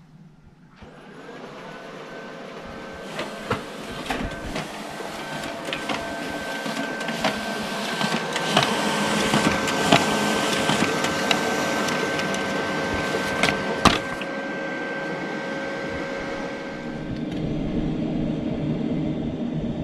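Office printer running as it prints a stack of pages, a steady whirring hum with a clicking paper feed and a sharp clack about 14 seconds in. Near the end it gives way to a quieter, steady machine noise from a bean-to-cup coffee machine filling a thermos flask.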